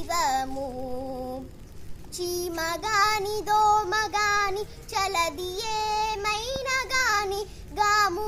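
A young girl singing a Telugu devotional keerthana solo, in long held notes that bend and waver in pitch, with a short breath pause about two seconds in.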